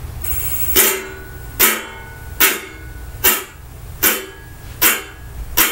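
Metal spoon striking a metal bowl seven times, about once every 0.8 s. Each strike rings briefly with a few clear tones.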